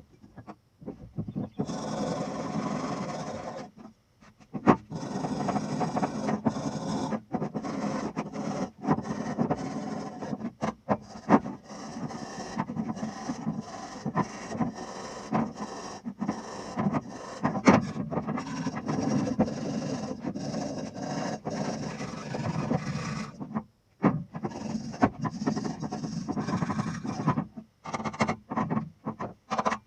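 Hand abrasion of a small-block Chevy 350 crank pulley and harmonic balancer being cleaned up for restoration: a run of quick rasping, scrubbing strokes with scattered clicks. It pauses briefly about four seconds in and again a few seconds before the end.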